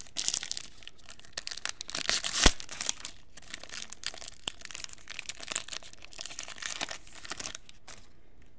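Foil trading card pack being torn open and crinkled by hand: a run of irregular crackling tears and rustles, with one sharp crack about two and a half seconds in.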